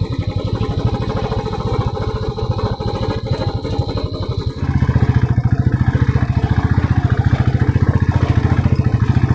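Motorcycle engine pulling hard up a steep climb with a passenger aboard, the rider having said the bike is gasping under the weight. About halfway through, the engine note deepens and gets louder and holds there.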